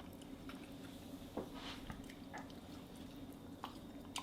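Faint wet squishes and a few soft clicks as a juicy whole grilled chicken is cut and pulled apart, over a steady low hum.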